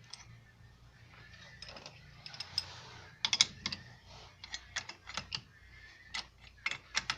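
Wrench tightening a nut on a new wheel stud to draw it through the hub, giving a string of sharp metallic clicks at uneven spacing, several a second, from about three seconds in.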